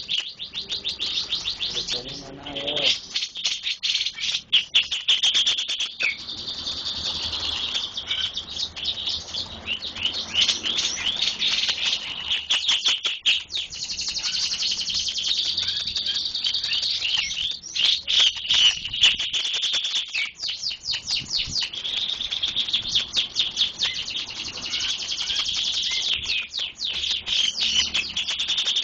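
Cucak jenggot (grey-cheeked bulbul) singing long runs of rapid, high trills and twitters in the flowerpecker-like 'cabe-cabean' style, with short breaks between the runs.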